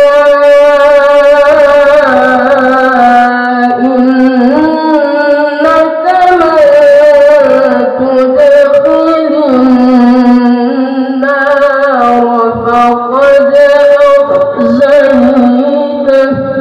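A boy's voice reciting the Qur'an in melodic tilawah style into a handheld microphone, drawing out one long ornamented phrase whose held notes wind up and down in pitch, fading at the very end.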